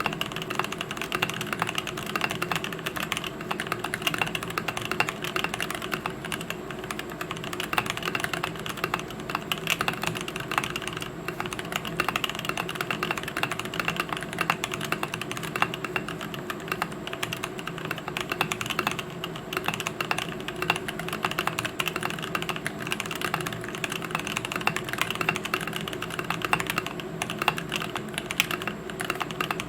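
Continuous fast typing on a custom mechanical keyboard with lubed Gazzew Boba U4T tactile switches, an aluminium case with a brass plate and PBT keycaps: a steady stream of keystroke clicks and clacks.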